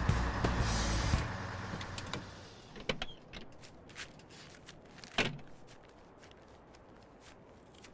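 A U-Haul box truck's engine rumbles and fades away after about a second as the truck comes to a stop. Then come the clicks of the cab door opening and a heavy slam of the door shutting about five seconds in.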